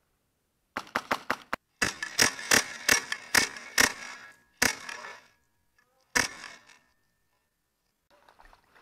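HPA airsoft M4 with a PolarStar Jack engine firing: a quick run of about five shots, then about ten more at a slower, uneven pace, the last two spaced well apart, each shot echoing off the rock walls.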